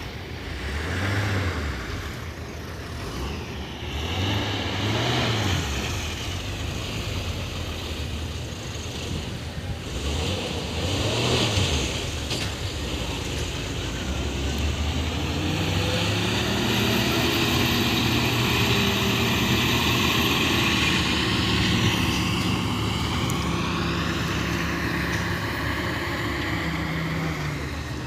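Heavy road traffic: several vehicles pass in the first half, each swelling and fading. Then a large diesel engine, like a truck's, runs close by and gets louder from about halfway through.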